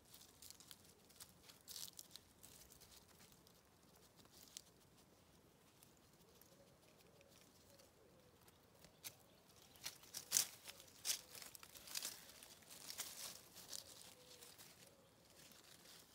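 Faint rustling and crackling of dry leaves and twigs in holly undergrowth, a scatter of light clicks that grows busier and louder in the second half.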